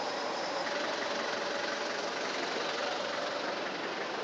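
A vehicle engine idling steadily, with a constant background hiss.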